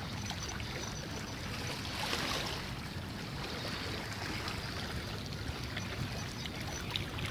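Steady wash of sea water, swelling briefly about two seconds in.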